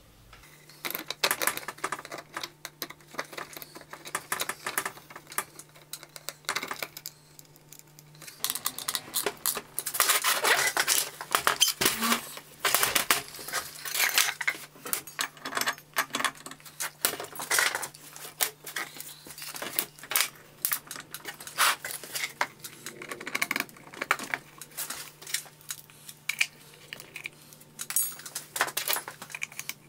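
Irregular metallic clinks, knocks and clatter of parts and hand tools on a steel workbench as wooden wheels are fitted to a combat robot's metal drive frame, over a faint steady hum. The clatter is busiest for a few seconds just before the middle.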